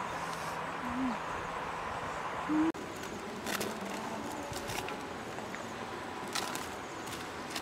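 A low, steady hooting tone with two short rising hoots, over an even background hiss; from about three seconds in, rustling and crackling as a spit-roasted whole pig is lowered into a wicker basket.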